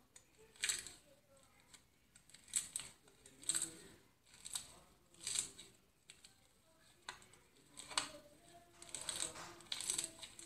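Iceberg slime, its dried crust crackling as hands press and squeeze it: short crackles about once a second, turning into denser crackling near the end.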